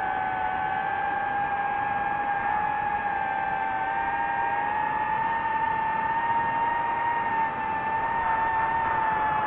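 DJI FPV drone's motors and propellers whining steadily in flight, the pitch drifting slightly up and down with throttle, over a rushing hiss.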